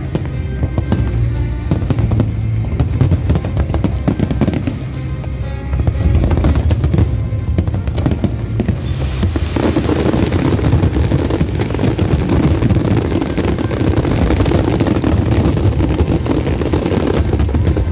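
Fireworks display: a dense run of bangs and crackles over a low rumble, growing thicker and more crackly about halfway through. Music plays along.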